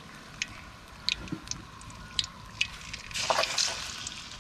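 Battered banana pieces frying in hot oil: a steady sizzle with sharp scattered pops of spitting oil, and a short louder rush of sizzling a little after three seconds in.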